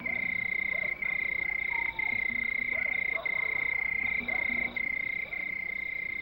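Night chorus: a steady high-pitched trill broken by short gaps about once a second, with faint short croaking calls beneath it.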